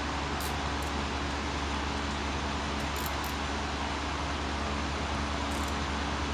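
Titan Industrial generator's engine running at a steady speed, a constant low hum and drone after a no-start repair.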